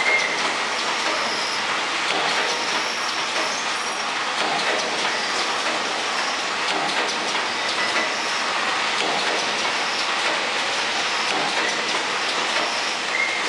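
Automatic clothes-peg assembly machine running: its vibratory bowl feeders and assembly station make a steady, dense clatter of small peg parts, full of rapid irregular clicks.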